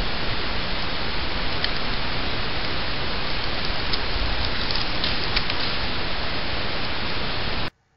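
Steady rushing hiss of outdoor noise on the camera microphone, with a few faint ticks, cutting off suddenly near the end.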